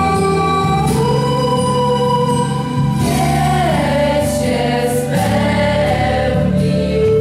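A choir singing a Polish Christmas carol (kolęda) in slow, held notes over sustained accompaniment chords.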